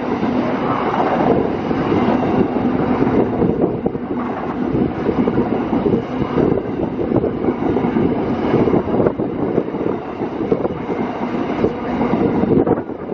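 Empty coal hopper wagons of a freight train rolling past close by, a steady loud rumble with constant clatter of wheels on the rails.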